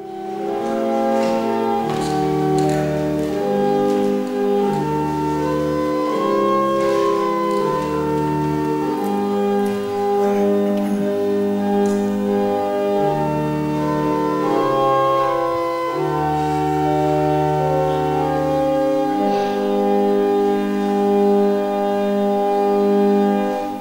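Church organ playing a slow piece of sustained chords over long, moving bass pedal notes, dying away near the end.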